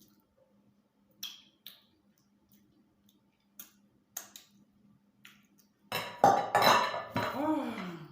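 Cutlery and dishes clinking during a meal: a few light, separate clicks, then louder, busier clatter from about six seconds in.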